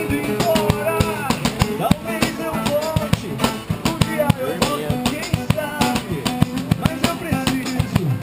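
Band music: a drum kit keeps a steady beat under guitar, with a melody line that slides and bends in pitch.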